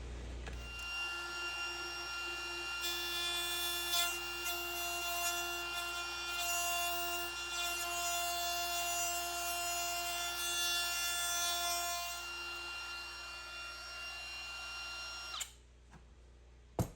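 A power tool running with a steady whine for about fifteen seconds, some of its tones dropping out about twelve seconds in, then cutting off suddenly; a sharp click near the end.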